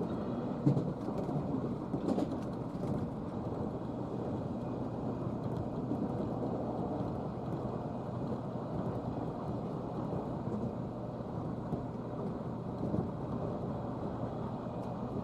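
Steady rumble of a JR Kyushu commuter train running, heard from inside the passenger car, with a couple of light knocks in the first few seconds.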